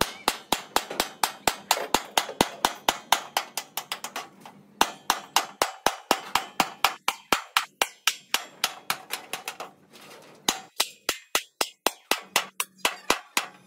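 Hammer blows struck rapidly and evenly, about four a second, with a few brief pauses, the longest about two-thirds of the way through, as in beating out bus body panels.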